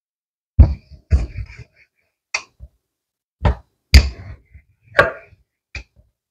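Wooden rolling pin knocking and rolling on a floured countertop as dough is rolled out flat: a string of irregular thuds and knocks.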